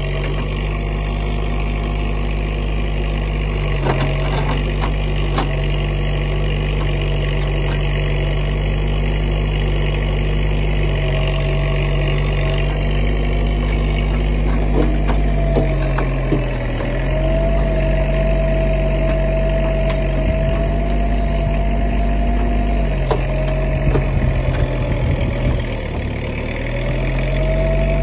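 Bobcat skid-steer engine running steadily while it powers a backhoe attachment digging out tree stumps. The engine pitch sags briefly and recovers about five times as the hydraulics take the load, with a higher whine that bends along with it and scattered knocks from the bucket against roots and soil.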